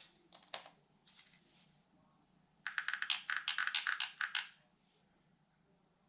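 A few separate clicks, then about two seconds of rapid clattering and rattling of small hard objects.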